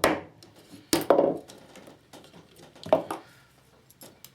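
A few sharp knocks and clatters from small battery-pack parts handled on a workbench, the loudest at the start and about a second in, another near three seconds in, with fainter ticks near the end.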